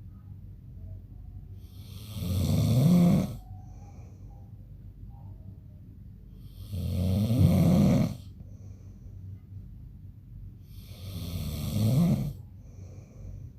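A man snoring in his sleep: three loud snores about four to five seconds apart, each lasting a little over a second and rising in pitch, with faint breathing between them.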